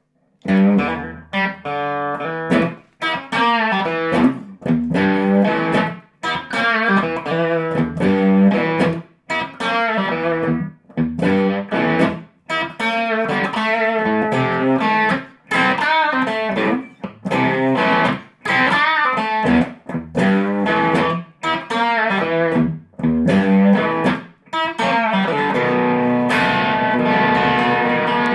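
Fender Sixty-Six electric guitar played through an amp with a light overdrive crunch. It plays short phrases of single notes and chords broken by brief gaps, then rings on more continuously near the end.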